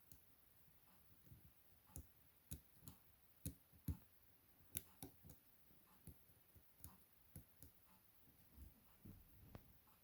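Quiet, irregular clicks and taps of a pick working the pins of a Chubb M3 rotating-pin lock, the sound of pins being lifted, turned and set under tension.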